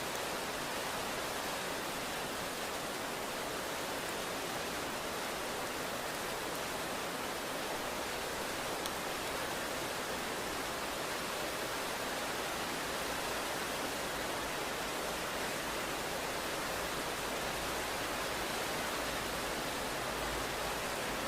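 Steady rain falling, an even hiss with no thunder or single drops standing out.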